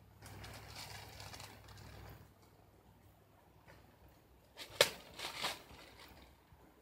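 Soft rustling, then a sharp crack a little under five seconds in, followed by a brief crunching.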